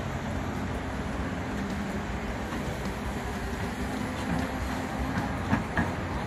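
A heavy engine running with a steady low rumble and hum, with two sharp knocks near the end.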